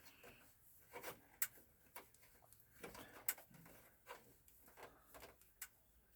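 Faint, scattered clicks and short scrapes of a screwdriver working small, easily stripped screws out of a computer's case.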